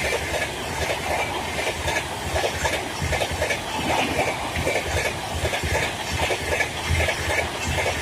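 Train wheels clattering over rail joints: a continuous clickety-clack over a steady rumble.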